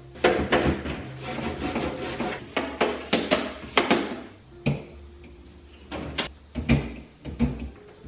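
Plastic refrigerator shelves and bins clicking, knocking and rubbing as they are handled and wiped down: a dense clatter for about the first four seconds, then scattered knocks.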